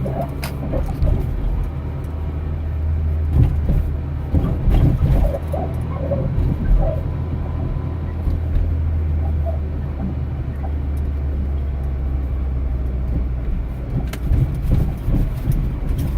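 Car running with a steady low rumble, broken by irregular knocks and clicks, a horrible sound that points to something wrong with the car.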